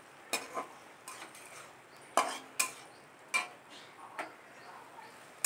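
A stirring utensil knocking and scraping against a kadai as pointed gourd pieces are tossed in a thick masala, with about eight sharp, irregular clinks over a faint frying hiss.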